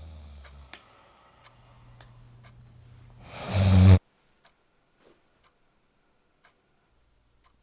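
A person snoring, building to one loud snort that cuts off suddenly about four seconds in, over a clock ticking; after the snort only the faint ticking is left.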